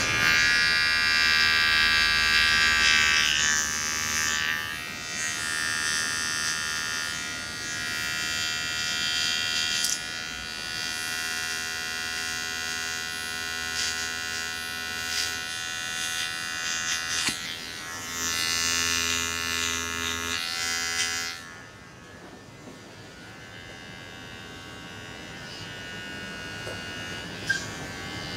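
Electric hair clippers buzzing steadily during a haircut, growing louder and softer as they move around the head. The buzz cuts off about three-quarters of the way through.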